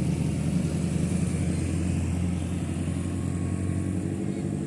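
A road vehicle's engine running close by, a steady low drone that slowly fades over the few seconds.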